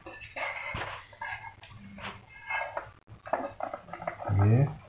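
Irregular clicking and rattling of the LED downlight's parts as its finned heatsink is handled and fitted back onto the reflector housing. Near the end comes a brief low, voice-like hum.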